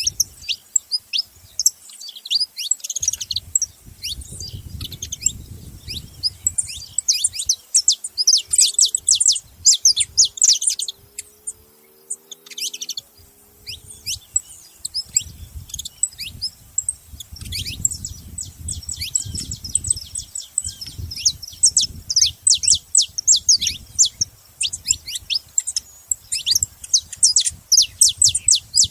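Saffron finch chirping: many short, high chirps in quick runs, with brief pauses around the middle.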